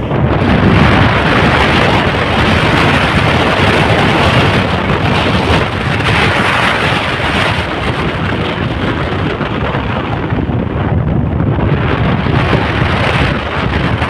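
Wind buffeting the microphone: a loud, steady rushing noise with a low rumble underneath.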